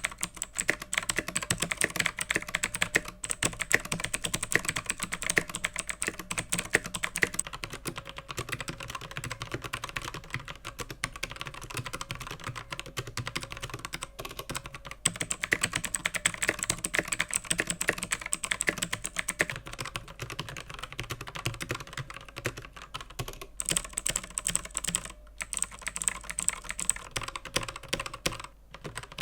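Typing on a Digital Alliance MECA 5 mechanical keyboard with Outemu Blue clicky switches: a steady stream of sharp key clicks, busier in some stretches and sparser in others.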